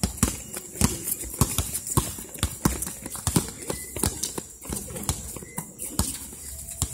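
A basketball being dribbled and players' shoes hitting a concrete court during play: a quick, uneven run of sharp thuds, about three a second.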